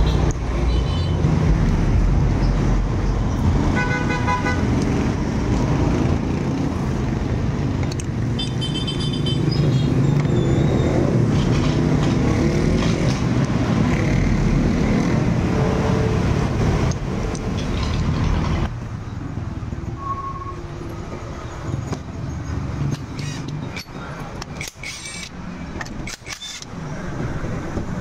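Road traffic going past, with a heavy vehicle engine rumbling loudly for the first two-thirds and then dropping away. Short horn toots sound three times in the first ten seconds, and a few sharp clicks come near the end.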